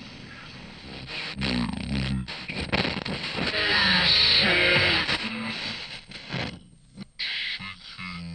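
Music soundtrack that swells in about a second in and is loudest near the middle, with a brief drop-out near the end.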